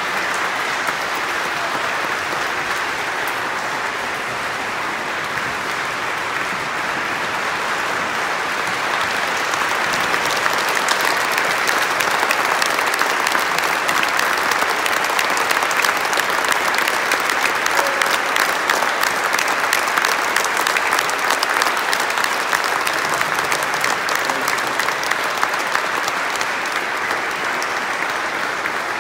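A large church congregation applauding, a long, steady round of clapping that grows a little louder about ten seconds in.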